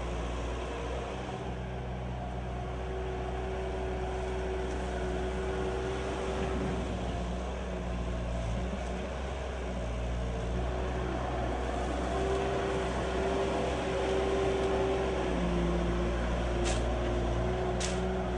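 Bobcat skid-steer loader's engine running steadily while it works, its pitch shifting up and down a few times. Two short sharp ticks come near the end.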